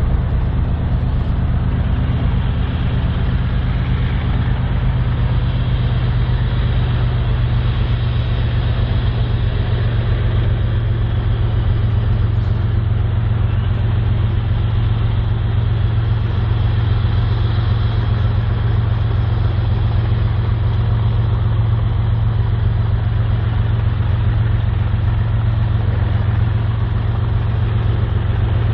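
BNSF GE diesel freight locomotives running, a steady low engine drone with a rushing noise of the train above it and no horn.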